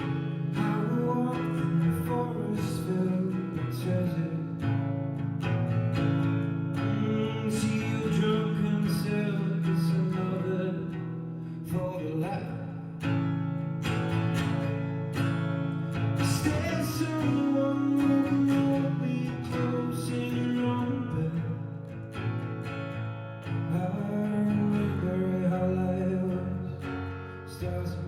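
Live solo acoustic guitar, strummed and picked, with a voice singing over it.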